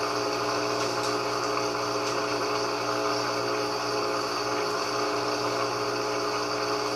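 GE 15 kg top-load washing machine running with its lid off: a steady motor and drain-pump hum with water noise, even and without knocking.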